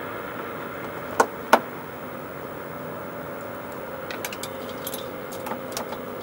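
Two sharp clicks close together about a second in, then a scatter of lighter ticks near the end, as a hand works the grill and its retaining screw from under the front of a Polaris Slingshot. A steady hum runs underneath.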